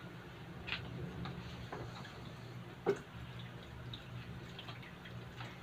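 Soup in a stainless steel pot being stirred with a wooden utensil: faint liquid sloshing and a few light clicks against the pot, the clearest about three seconds in, over a faint steady low hum.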